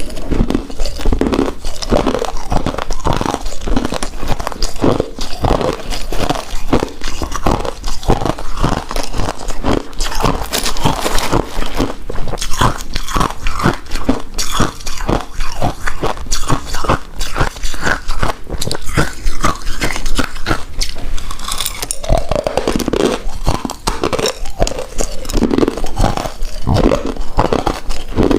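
Close-miked chewing and biting of a chewy rice cake coated in shredded coconut, with a dense run of quick, irregular mouth clicks and smacks.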